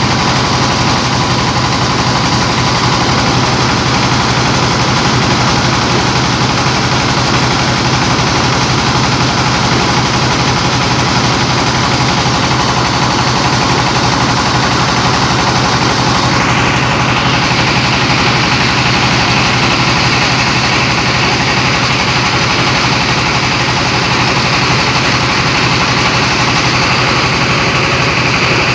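Rice milling machine driven by a 24 hp diesel engine, running continuously while milling paddy into rice: a loud, steady mechanical din over the engine's low thrum. About halfway through, the higher-pitched part of the noise shifts upward.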